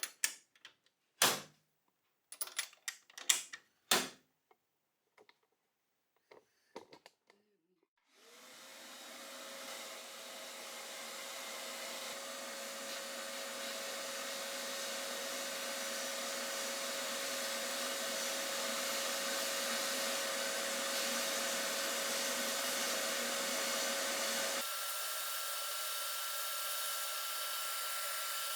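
A few sharp clicks and clatters of small metal parts being handled, then about eight seconds in an electric motor starts, winds up over a couple of seconds and runs steadily with a whine. Near the end its sound changes abruptly, the whine going higher and the low rumble dropping away.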